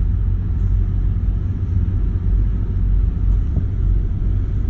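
Steady low rumble of a car's interior, engine and road noise running evenly with no change in pitch.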